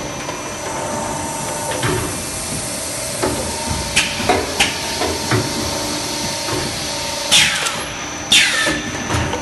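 HDPE bottle blow molding machine running: a steady mechanical hum with a scattering of knocks and clacks from the mold and moving parts. Near the end come two loud, sharp hisses of air about a second apart, the loudest sounds here.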